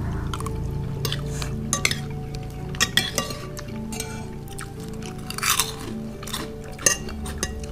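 Metal spoons clinking and scraping on ceramic plates as people eat, over soft background music.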